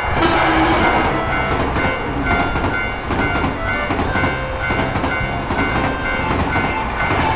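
Train passing a railroad crossing, its wheels clattering on the rails, while the crossing bell keeps ringing in short repeated clangs.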